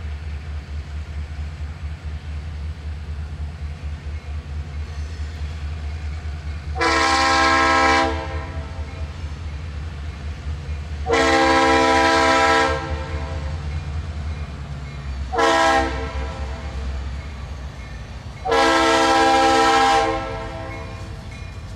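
Horn of an approaching EMD diesel freight locomotive blowing the grade-crossing signal: two long blasts, a short one and a final long one, spaced a few seconds apart. Under it runs the steady low rumble of the locomotive's diesel engine.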